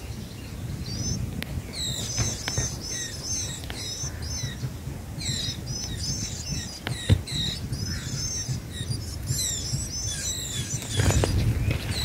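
White-eye nestlings begging with rapid, high-pitched cheeps, short curving chirps repeated over and over. A single sharp tap sounds about seven seconds in.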